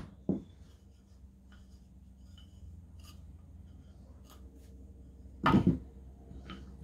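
Wooden canvas-stretcher bars and small metal bolts and an Allen key being handled: light scattered clicks and taps, then one louder knock about five and a half seconds in.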